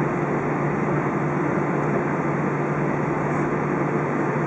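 Steady cabin drone inside an Airbus A320 on the ground: engine and air-conditioning noise with a low, even hum and no change in level.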